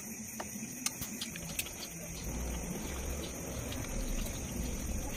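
Quiet hand-eating sounds: a few light clicks as fingers work rice against a steel plate, then soft, low chewing and mouth sounds from about two seconds in.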